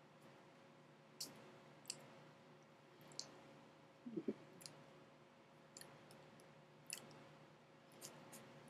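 Near silence: room tone with a steady low hum and about a dozen irregular, scattered clicks and taps, the loudest a short cluster about four seconds in.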